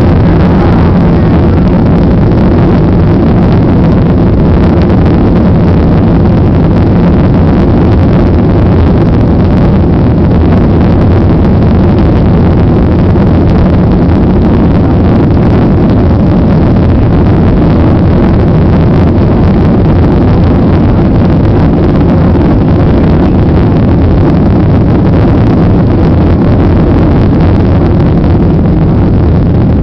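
Boeing 737 jet engines running at takeoff power: a steady, very loud noise heavy in the low end, easing slightly near the end.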